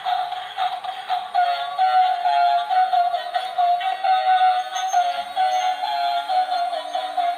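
Battery-powered bump-and-go toy car playing its built-in electronic tune through a small speaker: a fast, thin, high-pitched melody of quick stepping notes.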